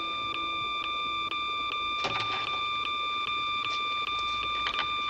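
Batphone ringing: a steady high electronic ring that pulses about twice a second.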